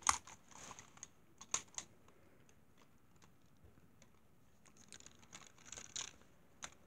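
Plastic toy train engines being handled and set down on carpet: a sharp click at the start, a few light knocks in the next two seconds, then a cluster of small clicks and rattles near the end as the toys are picked up.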